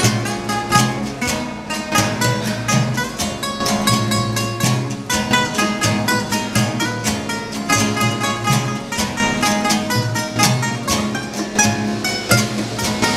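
Acoustic guitars played live: quick, rhythmic strummed chords with picked melody notes over them.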